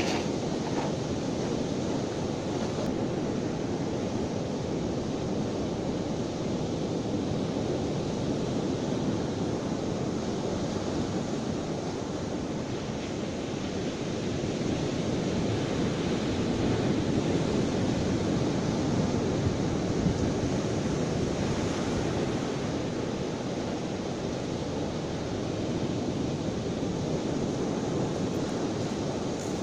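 Sea surf rushing on the shore with wind buffeting the microphone, a steady deep rush that swells and eases slowly.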